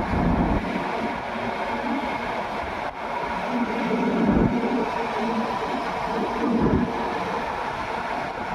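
Wheeled excavator's diesel engine working steadily, with brief heavier low surges about halfway through and again near the end.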